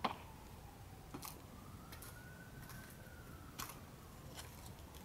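A faint emergency siren wailing slowly up and down. A few sharp clicks of high-heeled footsteps on debris fall over it.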